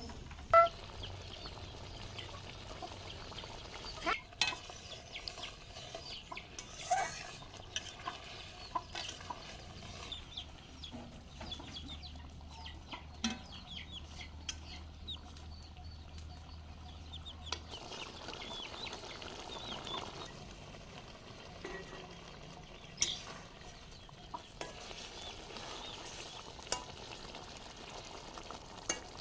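Fish curry frying and sizzling in a pan while it is stirred, with scrapes and clinks of the spoon against the pan. The loudest clink comes about half a second in. Chickens cluck in the background.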